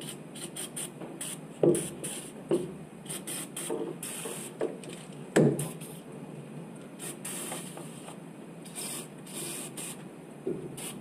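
Aerosol can of PB Blaster penetrating oil spraying in short, uneven spurts of hiss, with a few sharp knocks between them. The can is spraying poorly, a can that often won't spray right side up.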